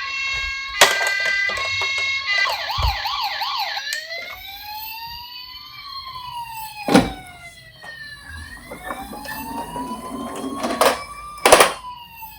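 Several toy police-car and ambulance sirens sounding together. First comes a stepped two-tone hi-lo pattern, then about two seconds in a fast yelp, then slow rising and falling wails that overlap. A few sharp knocks come through, the loudest near the end.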